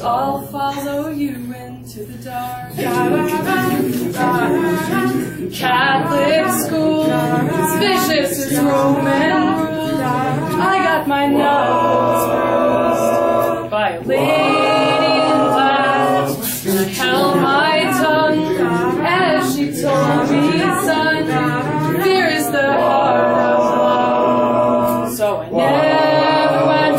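A cappella group singing a slow song: a lead voice over sustained backing voices, men's and women's, with a few short percussive clicks.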